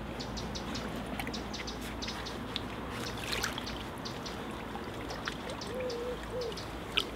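Water trickling and dripping, with small splashes, as a landed mirror carp is lowered back into the lake and released. A sharp click near the end.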